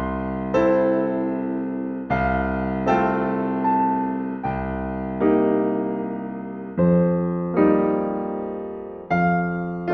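Background music: slow keyboard piano chords, each struck and left to fade, about one a second.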